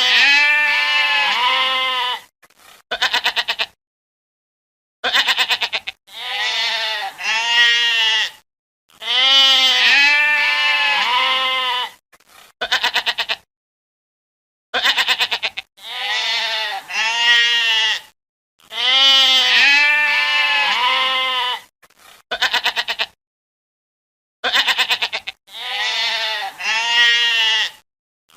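Goats bleating: long, wavering calls that rise and fall in pitch, mixed with short, quavering stuttered bleats, separated by gaps of silence. The same sequence of calls repeats about every ten seconds.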